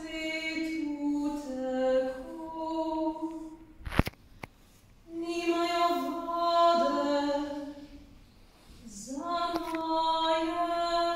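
A solo female voice singing unaccompanied, in three phrases of held and stepping notes with short pauses between them. A single sharp click sounds about four seconds in, in the first pause.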